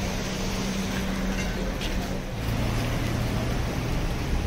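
A vehicle engine running close by: a steady low drone that drops to a lower pitch a little past halfway, over a constant wash of street noise.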